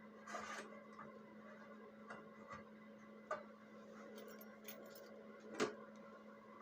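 Scattered light clicks and taps of tools and parts being handled, with a brief scrape near the start and a sharper knock about five and a half seconds in, over a steady hum.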